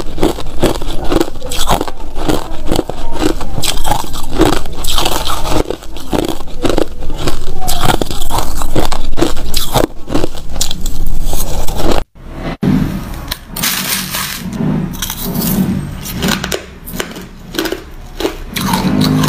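Close-miked crunching of crushed ice and freezer frost being chewed, with rapid, irregular crunchy bites. About twelve seconds in there is a brief break, then crunching of frost chunks resumes, quieter.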